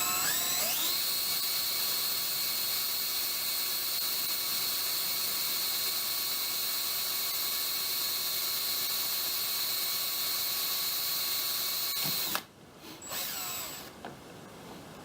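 Electric drill spinning up and running at a steady speed while boring a 5/64-inch hole for a cotter pin. It stops abruptly about 12 seconds in, followed by a short second run.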